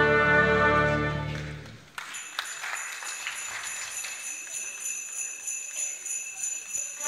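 Youth orchestra playing with full winds, low brass and strings, fading away about a second and a half in. A quieter passage follows of steadily jingling bells with light, tinkling struck notes, and the full ensemble comes back in at the very end.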